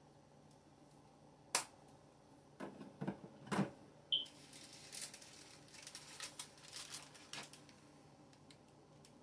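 Clicks and knocks from a countertop microwave being handled, with one short high beep about four seconds in, then a run of light clicks and paper rustles as a wrapped sandwich is handled.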